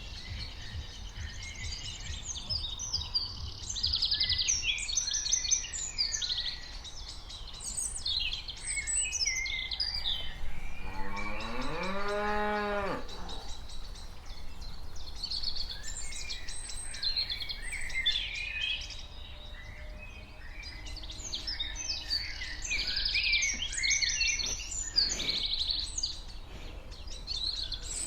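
A cow lowing once near the middle, a single call of about two seconds that rises and then falls in pitch, over continuous chirping and singing from many small birds, with a steady low rumble underneath.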